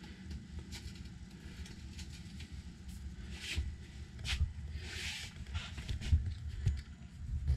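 Movement and handling noise as a person carries a camera through a small boat cabin: soft low thumps of footsteps and body movement, with several brief clicks and rustles scattered throughout.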